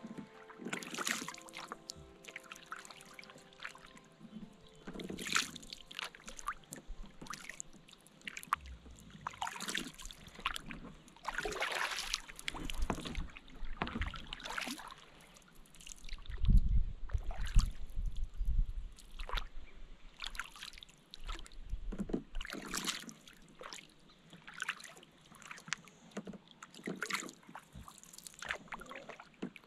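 Kayak paddle blades dipping and pulling through lake water in a steady rhythm, a splashy stroke every two to three seconds with water dripping off the blade, and a brief low rumble about halfway through. Background music fades out in the first few seconds.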